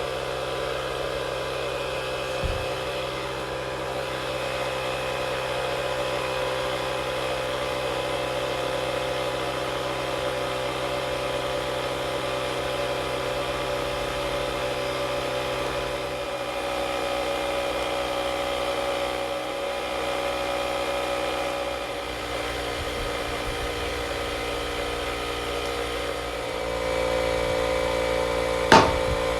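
Small 12-volt car emergency tyre inflation pump running steadily, inflating a freshly fitted motorcycle tyre. Its hum rises a little in level near the end, and a single sharp snap sounds just before the end.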